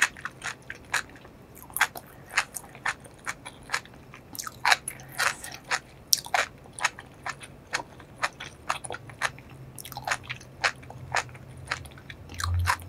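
A person chewing food with the lips closed, close to the microphone: irregular wet clicks and smacks, about two to three a second, with a brief low thump near the end.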